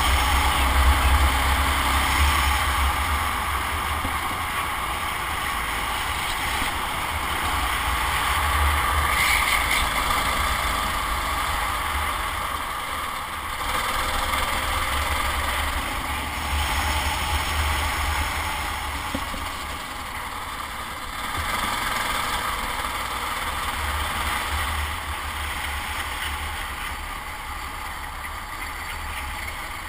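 Racing kart engine running hard on track, its note swelling and easing as the kart accelerates and slows through corners, over a heavy low rumble.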